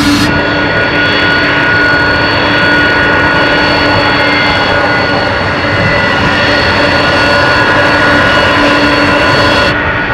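Jet engines of a C-5M Super Galaxy, its four General Electric F138 turbofans, running steadily: a loud, even rush of noise with several steady whining tones on top.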